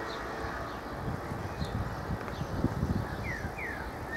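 Low, uneven outdoor rumble with a few louder surges in the middle, and two short descending bird chirps near the end.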